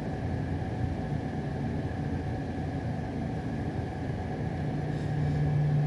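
A steady low mechanical hum, with a low tone that grows louder about five seconds in; no banging is heard.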